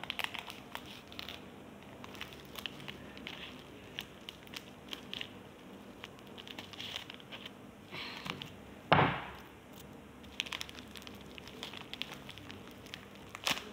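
Plastic cookie wrapper crinkling and crackling as it is cut open with scissors and pulled apart, with one much louder sudden crackle about nine seconds in.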